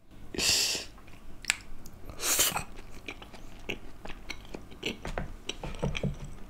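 Close-miked mouth sounds of a person biting into and chewing a hara bhara momo, a green steamed dumpling, with many small clicking chewing noises.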